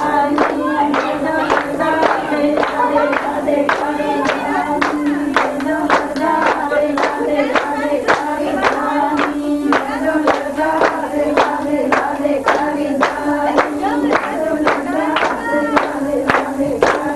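A group singing together with steady rhythmic hand-clapping keeping the beat, roughly two to three claps a second, over a steady held note.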